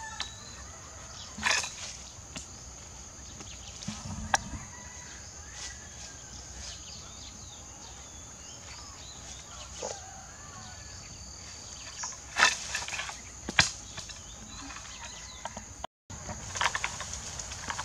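Long bamboo pole jabbing into the branches of a tamarind tree to knock the fruit down: leaves rustling and several sharp knocks, the loudest two close together near the end. Under it runs a steady high insect drone, with birds chirping now and then.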